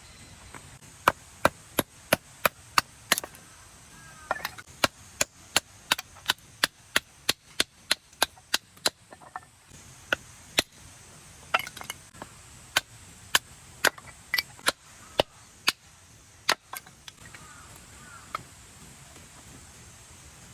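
Firewood being chopped on a chopping block: a long run of sharp, regular knocks of a blade striking wood, about two a second, with a short pause partway through.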